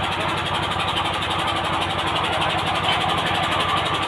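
An engine running steadily at idle, with a fast even pulse.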